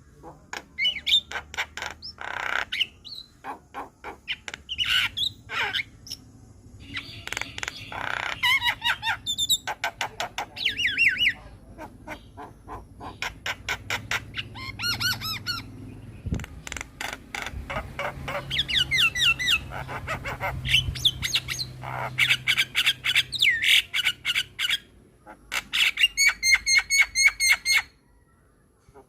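Javan myna (jalak kebo) singing a long, varied song: quick runs of harsh, rattling notes alternating with clear whistled phrases that glide up and down. It breaks off briefly near the end.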